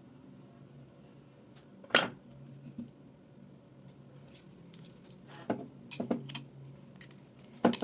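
Handling clicks and light knocks from a hair clipper's plastic housing and small metal parts during reassembly: one sharp click about two seconds in, a few smaller clicks a little past halfway, and another sharp click near the end, over a faint steady hum.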